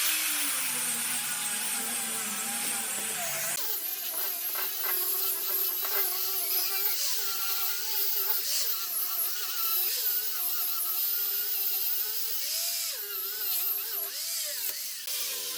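A handheld electric power tool running with a steady high whine and hiss, its pitch dipping briefly now and then.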